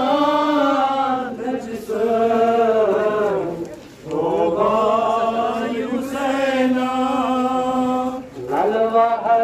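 A man's voice chanting a Muharram mourning lament into a microphone, in long drawn-out melodic phrases with brief pauses for breath.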